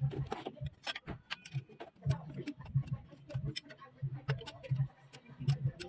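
Irregular, sharp metallic clicks and ticks of hand tools working the fittings on a Fuso 8DC9 diesel's in-line injection pump, several a second, over a low hum that comes and goes.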